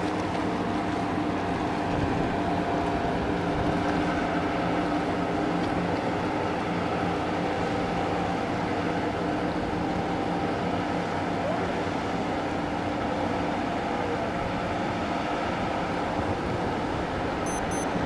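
Towboat's diesel engines running steadily, a continuous low droning hum that holds an even pitch.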